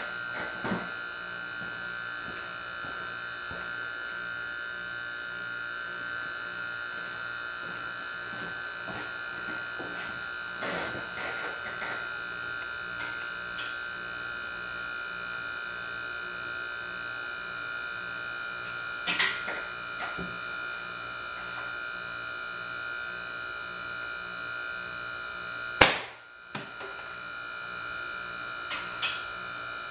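Steady electrical hum with several high, fixed whining tones, and a few faint clicks. Near the end, one sharp crack as the homemade .177 air gun, fired from a compressor-charged chamber through a solenoid valve, sends a lead pellet into the target card.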